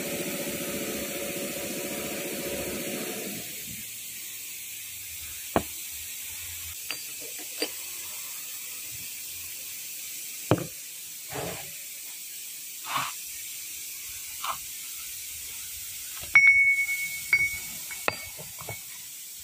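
A steady mechanical hum stops about three seconds in. Then come scattered light knocks and clicks of steel gear parts being handled, and near the end one loud metallic clink that rings on with a clear high tone.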